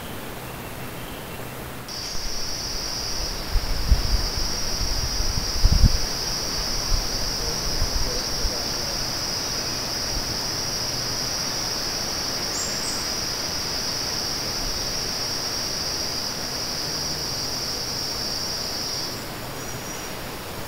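A steady, high-pitched insect drone starts about two seconds in, holds without a break and cuts off near the end, over a hiss of outdoor background noise. A few low thumps come between about four and six seconds in.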